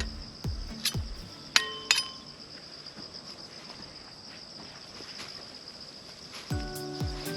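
A steady high-pitched insect drone, with background music whose thumping beat drops out after the first second and comes back near the end. Two sharp clinks with a short ring come close together a couple of seconds in.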